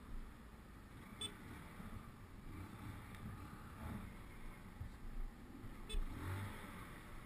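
Low rumble of slow road traffic and a motorcycle moving among cars, with two short sharp ticks, about a second in and about six seconds in.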